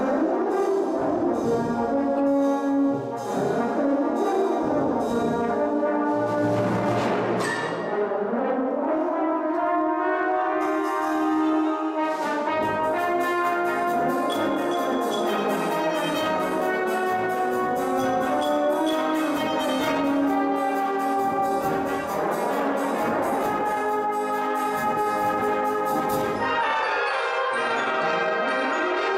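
A full brass band of cornets, horns, euphoniums, trombones and tubas playing a lively piece. Through the middle stretch, percussion keeps a steady fast beat under the brass.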